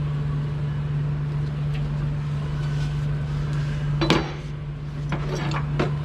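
Metal tools and parts clinking and clanking as worn packer-blade rollers are worked off, with one sharp clank about four seconds in and a few lighter clinks after it. A steady low machine hum runs underneath.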